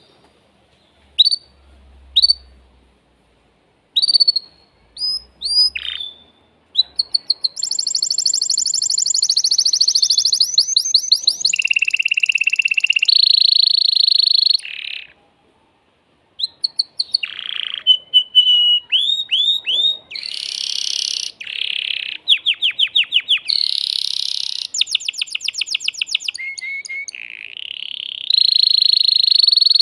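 Male canary singing: a few separate high chirps at first, then long runs of fast trills and rapidly repeated rolling notes, broken by a short pause about halfway.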